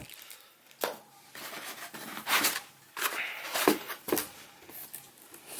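Packaging rustling and crinkling in irregular bursts with a few sharp clicks as a heater's remote control is unwrapped by hand.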